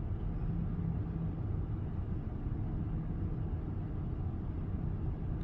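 Honda Odyssey's V6 engine idling steadily, a low even hum heard from inside the cabin with the van parked.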